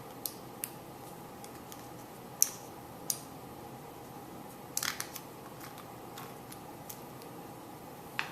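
Scattered small metallic clicks and taps from a key-in-knob lock being handled and taken apart, over a faint steady hum; the sharpest click comes a little over two seconds in and a quick run of clicks near the middle.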